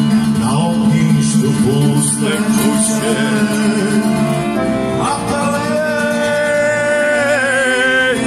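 Live Serbian folk music on accordion with a man singing into a microphone. A long held, wavering note fills the last few seconds.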